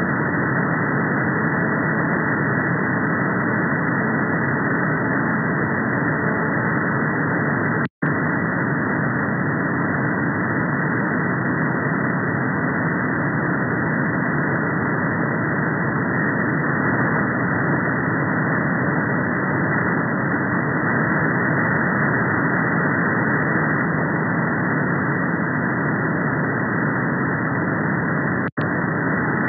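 Steady hiss of receiver noise from a software-defined radio in upper-sideband mode on the 39 MHz band, with no treble above the sideband filter's edge and no radar tones in it. The audio cuts out completely for a moment about eight seconds in, and again briefly near the end.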